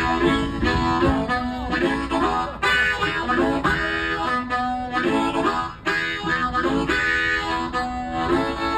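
Blues harmonica played into a handheld microphone: a run of quick changing notes and chords, with some notes bent.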